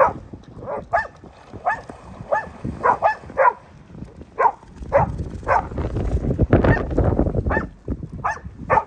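A dog barking repeatedly, short sharp barks about every half second with a few brief pauses. A low rumbling noise rises under the barks from about five and a half to seven and a half seconds in.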